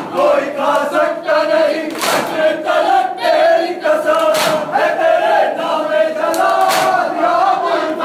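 Crowd of men chanting and calling out together in unison, with a sharp slap of hands on bare chests roughly every two seconds: Shia matam, the chest-beating of Muharram mourning.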